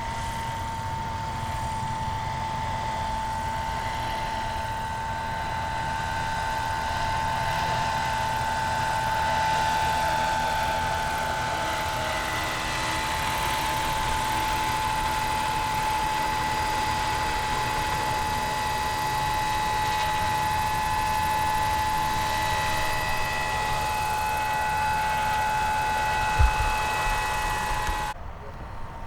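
A radio-controlled model aircraft motor giving a steady high whine over a hissing background, with a brief low bump near the end before the sound drops off suddenly.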